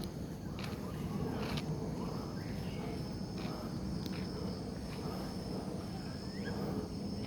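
Steady high insect drone, like crickets, with short bird chirps scattered through it over a low rumbling background.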